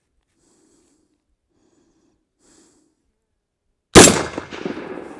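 A single .308 rifle shot from an ADM UIC-10A battle rifle about four seconds in, its report echoing and dying away over the next second. Before it, a few soft breaths from the shooter.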